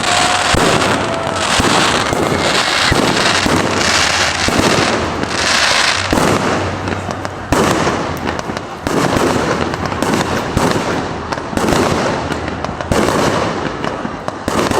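Fireworks display: shells bursting one after another in a dense, unbroken run of bangs, with patches of crackling in the first half.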